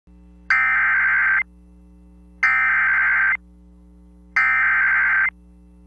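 Emergency Alert System SAME header data burst on a NOAA Weather Radio broadcast: three identical bursts of high, warbling two-tone data, each just under a second long and about a second apart, encoding a severe thunderstorm warning. A faint steady low hum sits underneath between the bursts.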